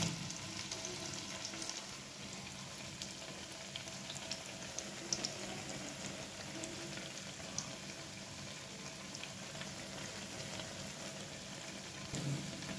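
Chana dal and vegetable pakodas deep-frying in hot oil in a kadhai: a steady sizzle with scattered small pops and crackles.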